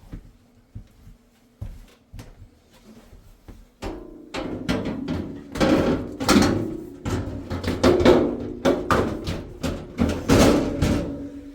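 Sheet-metal oven parts knocking, then clattering and scraping loudly with a metallic ring from about four seconds in, as the oven's bottom tray is fitted back in.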